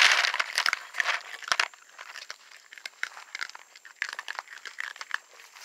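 Two young raccoons eating dry kibble: irregular crisp crunches and small clicks of pellets being chewed and picked from the bowls. A louder rustle comes right at the start.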